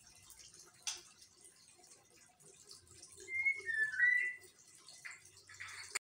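White-rumped shama (murai batu) giving a short phrase of a few clear, gliding whistled notes about three seconds in. A single sharp click comes about a second in, and two short harsh bursts come near the end.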